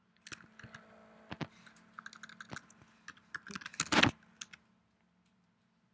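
Typing on a computer keyboard: a quick run of key clicks entering a short command, ending with the loudest cluster of strokes about four seconds in.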